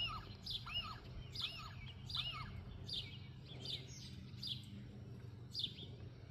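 Small songbirds chirping: a run of short arched chirps repeated about once or twice a second, then sharper downward-sliding chirps spaced further apart, over a faint steady low hum.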